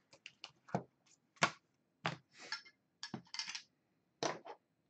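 Trading cards in hard plastic holders being gathered and set down on a tabletop: a run of irregular clicks and taps with short rustles of plastic sliding.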